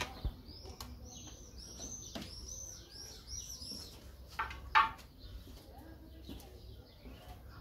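Small songbird chirping: a quick run of high chirps over the first few seconds, with two louder short sounds about halfway through.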